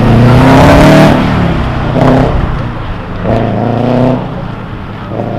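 A car engine revving hard through an autocross run, rising in pitch in three bursts with the throttle lifting between them; the first burst is the longest and loudest.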